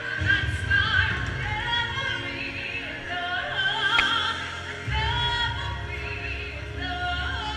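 A woman singing into a handheld microphone over recorded backing music, amplified through the room's speakers, with long wavering held notes.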